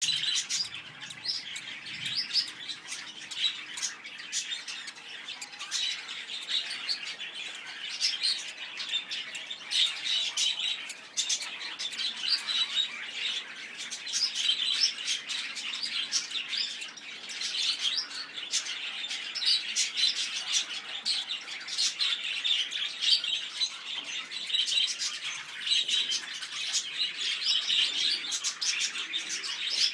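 Lovebirds chattering: a dense, continuous run of high, sharp chirps and squeaks.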